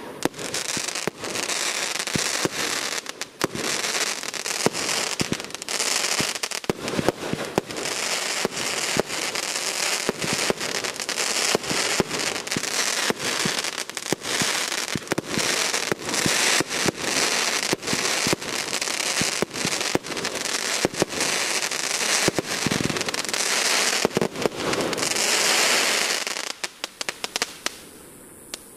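Aerial fireworks bursting overhead in a dense, continuous crackle of sharp pops. The crackle thins out suddenly near the end, leaving a few scattered pops.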